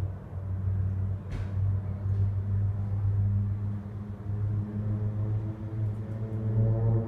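Formation of Pilatus PC-7 turboprop trainers flying by at a distance: a steady low propeller drone, with higher overtones growing stronger near the end.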